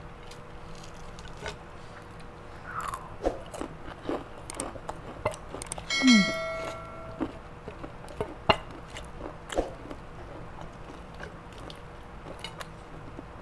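Crisp fried-chicken crust crackling and crunching in scattered sharp snaps as pieces are pulled apart by hand. About six seconds in, a brief ringing sound effect with a falling sweep is the loudest moment.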